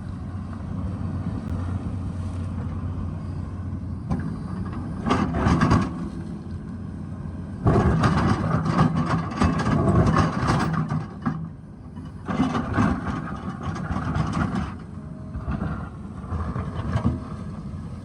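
Excavator diesel engine running steadily, with repeated bursts of the bucket scraping and crunching through rock. The longest and loudest burst comes about eight seconds in and lasts about three seconds.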